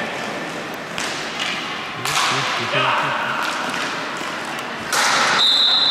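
Hockey game play: sharp clacks of sticks hitting the ball, with players' shouts. A high, steady whistle starts near the end.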